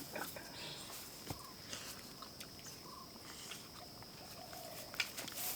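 Insects trilling steadily in a high, thin tone, with scattered faint clicks and rustles and a few soft chirps.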